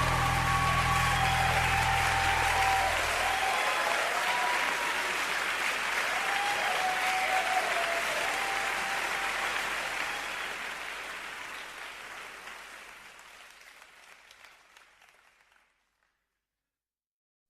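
A crowd applauding, with a few voices calling out over the clapping. The applause fades away steadily to silence near the end, and the low notes of a finishing song stop in the first few seconds.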